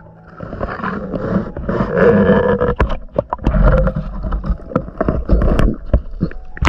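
Muffled underwater sound of water churning and bubbling around the camera, with repeated sharp knocks and heavy low thumps as the streambed is stirred up.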